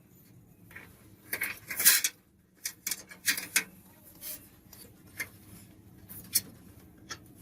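Metal parts of a PC case being handled and pressed into place: a run of irregular light metallic clicks and clatters, the loudest about two seconds in.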